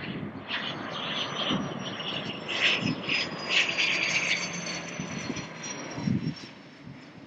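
An airplane's engine passing by, with a thin high whine that slowly falls in pitch. The sound fades near the end.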